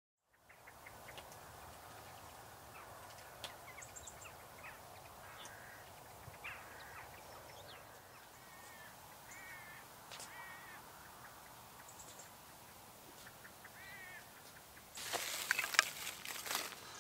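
Quiet outdoor ambience with birds calling now and then. Near the end, crackly rustling and light clattering as dry wood shavings and split kindling are handled on a fire bed.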